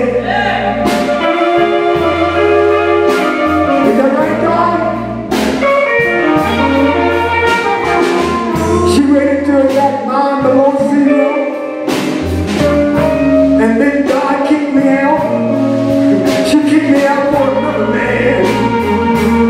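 Live blues band playing at full volume: a drum kit keeping a steady beat under electric guitar and a wailing harmonica, with a voice singing over it.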